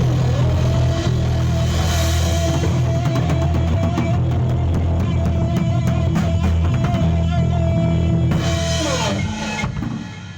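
A rock band playing live: drum kit, distorted electric guitar holding a steady note, and bass, loud and steady. About nine seconds in the drums crash on the cymbals and the guitar slides down as the song ends, and the playing stops.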